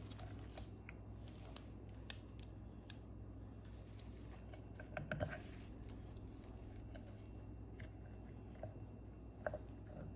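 Faint, scattered small clicks and scrapes of a screwdriver backing out the Torx screws that hold the brush plate inside a Minn Kota trolling motor's lower-unit housing, with a short cluster of clicks about halfway through, over a low steady hum.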